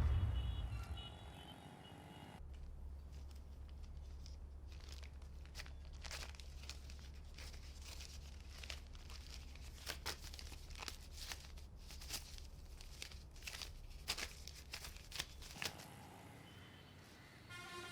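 Quiet, scattered sharp clicks and crackles over a low steady hum. The hum comes in about two seconds in and stops a couple of seconds before the end.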